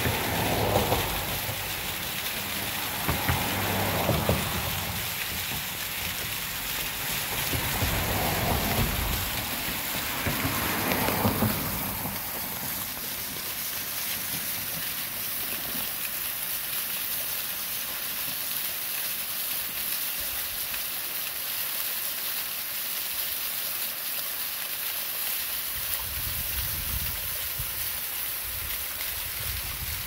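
Waterfall splashing: a steady hiss of falling water, with a few swells of lower rumble in the first twelve seconds and again near the end.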